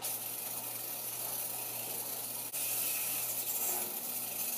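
Aerosol can of heavy-duty oven cleaner spraying in a long, steady hiss, broken only by a brief pause about halfway through.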